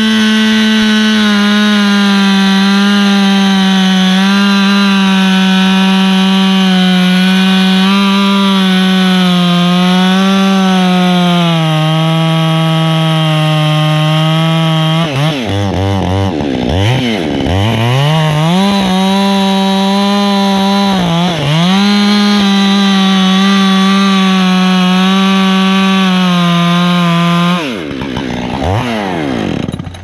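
Two-stroke chainsaw running at full throttle as it cuts through a pine trunk, its pitch dipping slightly now and then. About halfway through, the revs drop and climb again several times before it settles back to a steady high pitch. Near the end the throttle is let off and the engine falls away.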